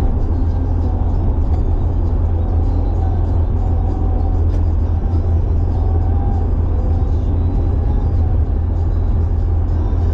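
Carburetted Nissan Silvia cruising at expressway speed, heard from inside the cabin: a steady, loud low drone of engine and road noise.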